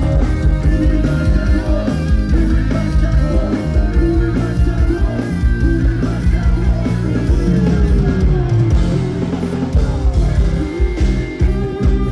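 Live band music with drum kit and guitars playing loudly on a steady beat.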